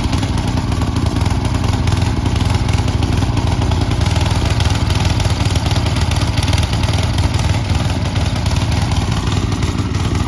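Snow blower engine running steadily as it clears snow, a constant low mechanical hum.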